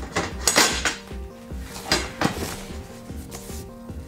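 Background music with a steady beat. Over it come a few brief rustles and knocks of packaging and boxed parts being handled.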